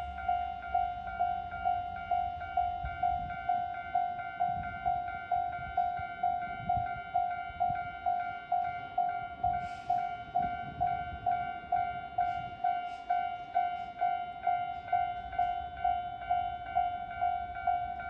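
Railroad crossing alarm bell ringing steadily in even electronic strokes, about two a second. A train rumbles across the crossing in the middle, with a few sharp clicks from the rails.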